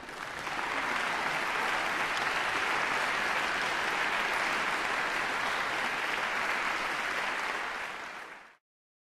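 Audience applauding. It swells over the first second, holds steady, then cuts off abruptly near the end.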